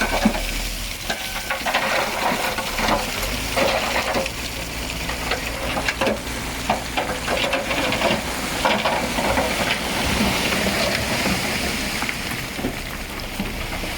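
Loose stone crackling and rattling as it slides and tumbles, a dense run of small clicks, over a low steady machine hum.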